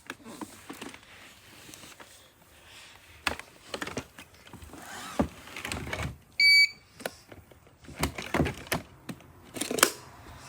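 Scattered clicks and knocks of a robot vacuum being handled, with one short, high electronic beep from the robot vacuum about six seconds in, the loudest sound.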